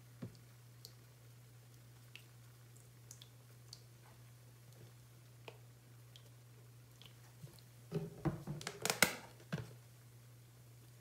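Plastic squeeze bottles handled and squeezed over a foam-topped sponge: a few faint clicks, then a short cluster of crackling, squishing and clatter about eight seconds in. A steady low hum sits underneath.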